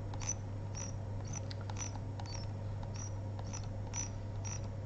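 Computer mouse scroll wheel ticking notch by notch, about two clicks a second, over a low steady electrical hum.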